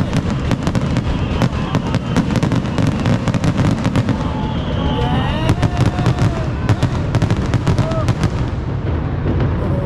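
Fireworks display: rapid sharp crackles over a continuous low rumble of bursts, with the crackling thinning out near the end.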